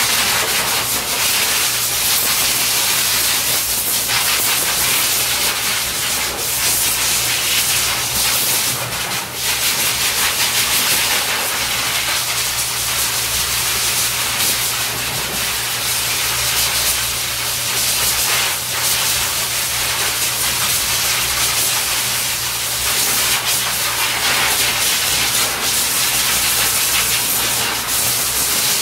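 Hose-type pet grooming blow dryer running steadily, a loud rushing hiss of air blown over a puppy's coat, with a steady low motor hum underneath.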